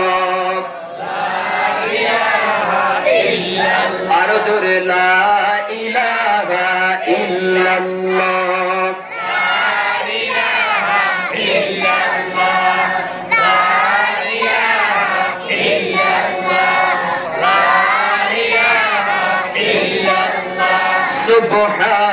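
A man's voice chanting an Islamic devotional verse in a melodic, sung style through a microphone and loudspeakers, with other voices overlapping it. A low note is held steadily near the start and again about seven seconds in.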